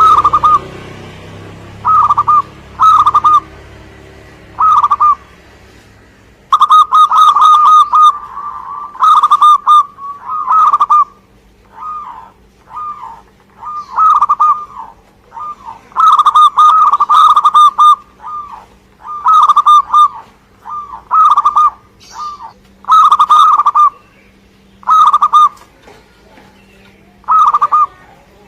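Zebra dove (perkutut) cooing, a song of short, quick rolling coo phrases repeated with brief pauses. It is sparse at first and comes thick and fast from about a quarter of the way in.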